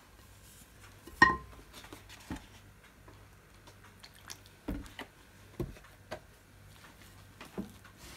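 Wooden spoon stirring stiff, sticky bread dough in a ceramic mixing bowl: soft squishing with scattered knocks of the spoon against the bowl, one sharp ringing knock about a second in.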